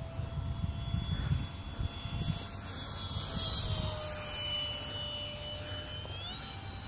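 Electric ducted-fan whine of a Phase 3 F-16 RC jet in flight: a steady high whine that rises in pitch about six seconds in. Wind buffets the microphone underneath.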